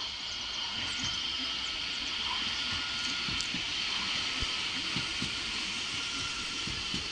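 Electric tram passing close by on its rails: a steady rolling hiss with a high whine held throughout, and a few low thumps.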